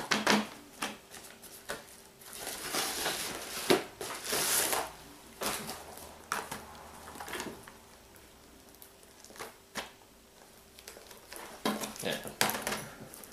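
Padded bubble mailer rustling and crinkling as shrink-wrapped DVD and Blu-ray cases are pulled out and handled, in irregular bursts with a few light clacks of plastic cases, the sharpest about four seconds in.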